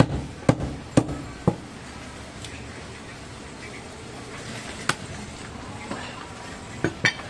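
Heavy butcher's knife chopping goat meat on a wooden log block: four sharp chops about half a second apart at the start, then a few scattered knocks later.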